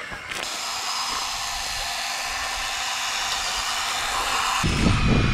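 A small motor whirring steadily with a high whine. Near the end, a heavy low rumble comes in.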